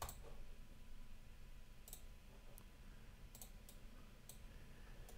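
Faint, scattered computer mouse clicks, about seven of them spread across a few seconds, over a low steady room hum.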